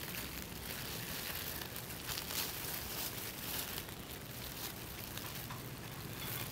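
Thin disposable plastic gloves crinkling and rustling softly as hands press and roll mashed potato around a blanched shrimp, with a few brief soft squishes.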